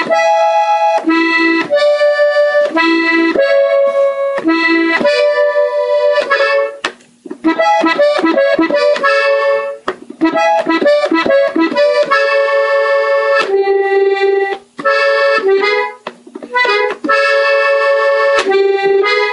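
Gabbanelli button accordion played slowly on the treble buttons, single notes and chords in short phrases with brief stops between them.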